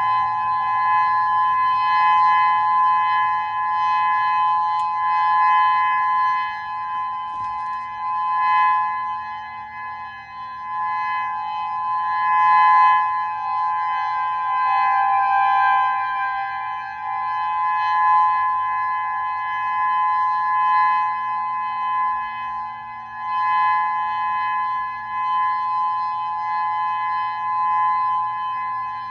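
Federal Signal outdoor warning sirens sounding a steady alert tone: one held pitch with no rise or fall, its loudness swelling and dipping every few seconds.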